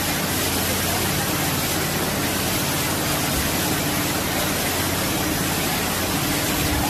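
Fast-flowing floodwater rushing and churning past, a steady, even rushing noise.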